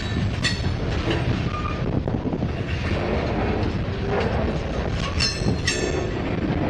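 Freight train of covered hopper cars rolling past close by, a steady rumble of wheels on rail. Three short, high wheel squeals cut through it, one about half a second in and two more close together near the end.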